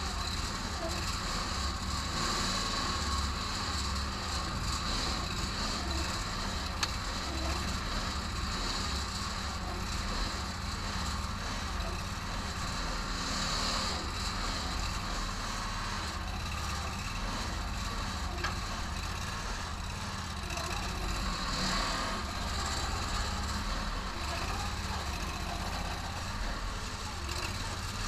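Homemade backhoe excavator's engine running steadily, driving its hydraulics while the boom and bucket are worked from the valve levers; the sound swells briefly a few times under load. The machine is running with low oil in the tank.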